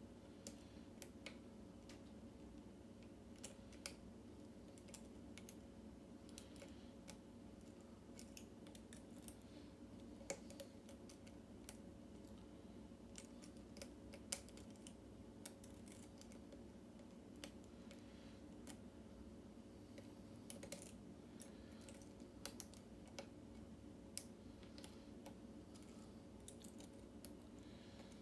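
Faint, irregular clicks and light scrapes of a hook pick and tension wrench working the pin stacks of a Yale mortise cylinder, over a steady low hum.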